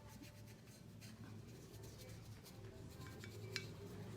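Faint scratchy strokes of a paintbrush working dark paint onto a plaster piece, over a low steady hum, with one sharper click about three and a half seconds in.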